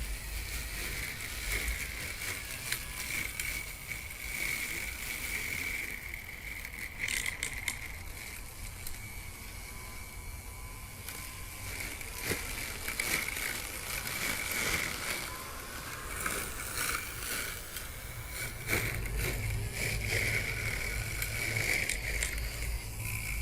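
DIY remote-control lawn mower running, its 775 electric cutting motor spinning box-cutter blades with a steady high whine, with scattered clicks and crackling throughout and a low rumble again in the last few seconds.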